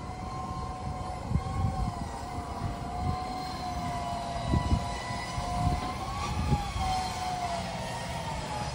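A steady drone from a distant engine, its pitch wavering slowly, over irregular low thumps.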